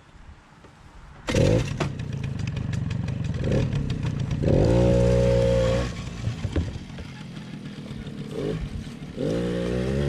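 Suzuki LT-A50 50cc ATV's two-stroke engine comes in loudly about a second in, then revs up and down in repeated surges, held high for over a second near the middle.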